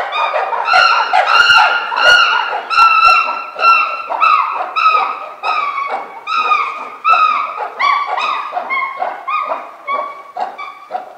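Chimpanzee giving a long series of loud, repeated calls, about two a second, each dropping slightly in pitch, loudest in the first few seconds and growing weaker and lower toward the end. This is the excited calling of the males as they wait for their evening feed.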